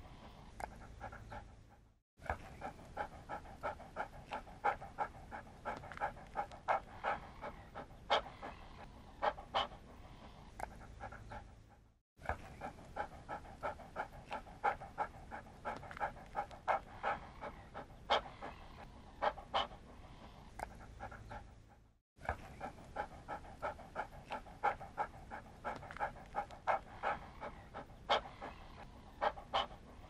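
Dog panting: quick, even, rhythmic breaths. The run cuts out briefly and starts again about every ten seconds.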